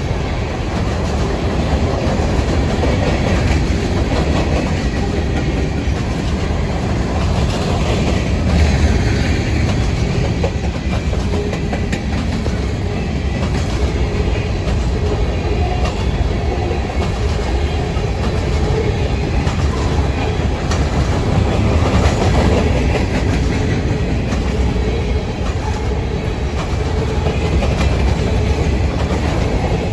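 Railcars rolling past at speed, a steady rumble with the clickety-clack of steel wheels over rail joints.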